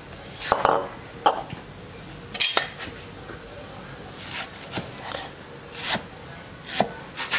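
Utensils and dishes clinking and knocking: about ten short, separate clinks spread over several seconds.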